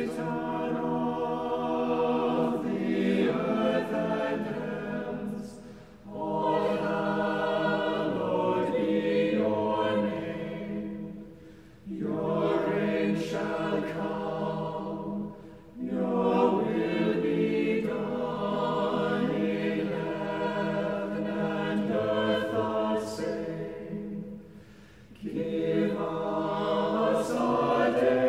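Unaccompanied choir singing in phrases of several seconds, with short breaks for breath between them.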